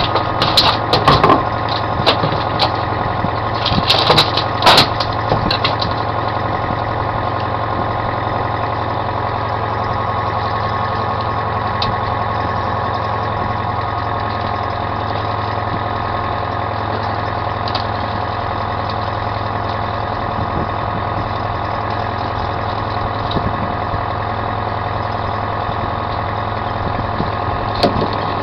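Fishing boat's engine running steadily at trolling speed, a constant drone. There are a few sharp clicks and knocks in the first several seconds and again near the end, from fishing gear being handled.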